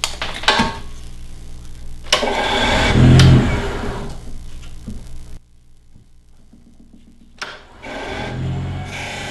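Wood lathe running with a spindle blank turning between centres, with a few sharp clicks at the start. The sound cuts off abruptly a little past halfway and comes back about two seconds later.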